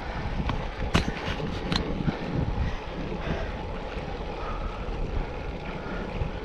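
Wind rumbling on the microphone, with a few sharp clicks around one to two seconds in.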